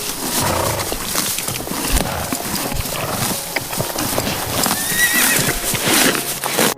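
Animal calls over a loud, noisy outdoor field recording, with many sharp knocks throughout and a short high call about five seconds in; the sound cuts off suddenly at the end.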